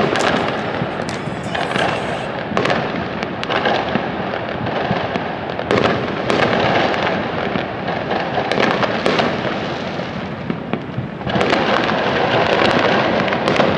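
Many fireworks going off at once across the city: a continuous mass of bangs and crackling with sharp pops all through, getting louder about eleven seconds in.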